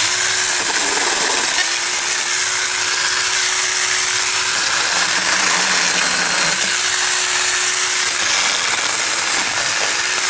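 Saker battery-powered mini chainsaw running and cutting through woody weed stems and stumps at ground level. Its motor whine sags in pitch as the chain bites under load, most clearly for about two seconds in the middle, then picks back up.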